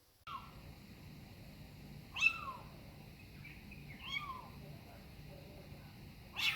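A cat meowing four times: short calls that fall in pitch, the loudest about two seconds in, over a faint steady low hum.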